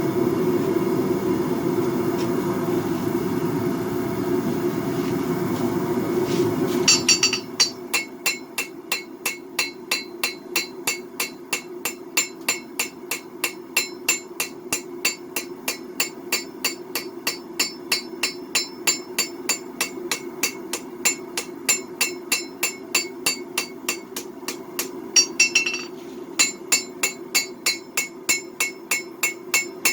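A Majestic three-burner propane forge running with a steady rushing noise for about seven seconds. Then a hand hammer starts striking hot 1084/15N20 twist Damascus steel on an anvil, about two to three ringing blows a second, with a brief break near the end.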